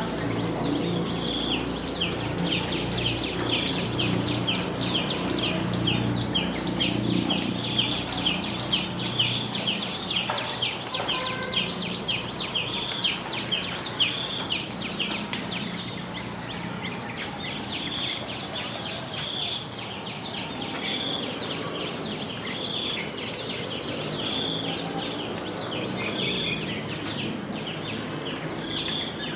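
Rural village ambience after rain: a dense, rapid chorus of high chirping from birds and insects, with one call repeating a short note about every second and a half, over a low hum.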